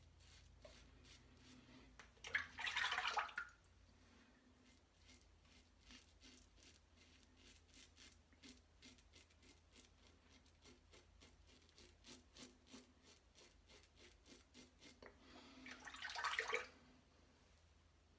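Parker 69CR open-comb safety razor with a Voskhod blade scraping through lathered stubble in many short, faint strokes. Twice, a few seconds in and near the end, there is a louder burst of water lasting about a second.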